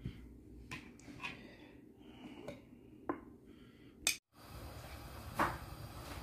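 Scattered faint clicks and taps of a utensil against a plate. After a brief gap, a knife cutting on a cutting board, one louder click among the cuts.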